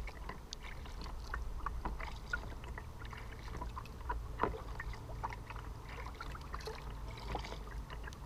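Small splashes and drips of water lapping against a kayak's hull, heard as many scattered light ticks over a low steady rumble.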